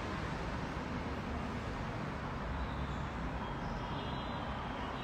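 Steady city street traffic noise: a continuous low rumble and hiss of passing vehicles heard from a balcony above the street.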